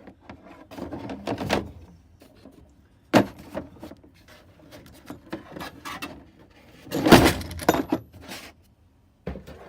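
Tools and a metal tool chest drawer being handled: scattered rattles and knocks, a sharp knock about three seconds in, and a louder, longer clatter about seven seconds in.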